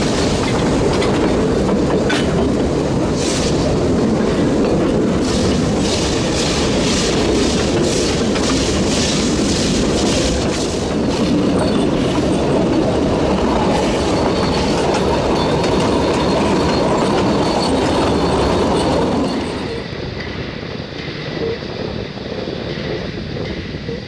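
Narrow-gauge heritage train carriages running over rails, a loud steady rumble with rhythmic clickety-clack from the wheels. About three-quarters of the way through it drops to a quieter, duller running noise.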